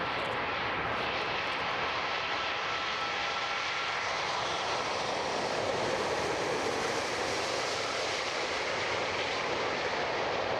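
Airbus A380-800's four Rolls-Royce Trent 900 turbofans on final approach and through the flare to touchdown: a loud, steady jet roar with a faint high whine in the first half, swelling slightly a little past the middle as the aircraft passes.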